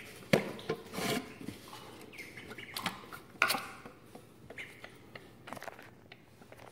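Plastic poultry waterer being handled: the green base is worked onto the water jug and the waterer is set down, giving a series of plastic knocks and clicks. Faint duckling peeps are heard in between.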